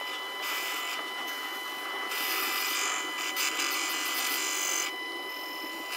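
Proxxon mini lathe running with a steady high whine while a cutting tool turns down a steel rebar shaft. A high hiss from the cut comes and goes, strongest from about two to five seconds in.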